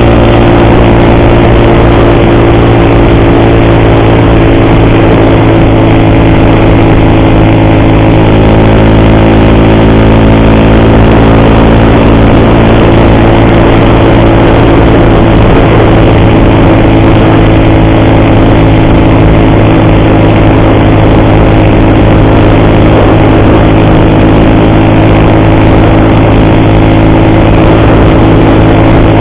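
Motorcycle engine running at a steady speed while being ridden, its pitch holding level throughout.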